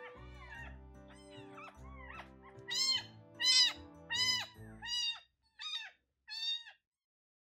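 A very young baby kitten mewing repeatedly in high, rising-and-falling cries, about half a dozen loud ones in quick succession over the second half. Soft background music runs underneath and stops about five seconds in.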